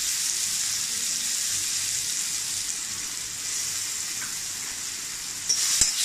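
Small mango pieces sizzling in a little hot ghee in a kadai, a steady hiss that eases off slowly. About five and a half seconds in, a spatula starts scraping and stirring them in the pan.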